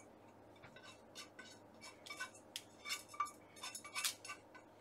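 Faint, irregular clinks and light taps of kitchenware at the sink as rinsed brown rice is drained, starting about half a second in and growing busier toward the end.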